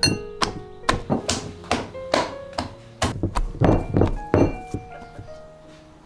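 Hands kneading and pressing soft dough in a glass bowl: a run of irregular thuds and slaps, heaviest a little past the middle and stopping about a second before the end.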